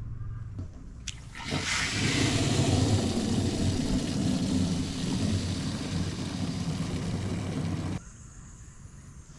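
Water from a garden hose rushing into the tank of a Thetford Porta Potti 365 portable toilet, starting about a second and a half in and cutting off sharply near the end.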